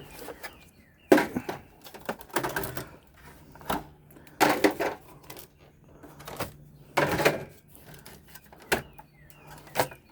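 Metal and plastic objects clattering and knocking as they are lifted and shifted, in a string of separate sharp clanks and scrapes with short pauses between them.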